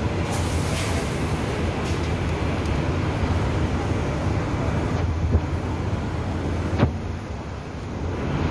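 City street traffic: a steady low rumble of passing road vehicles and trams, with a short hiss about a second in and a sharp click near the end.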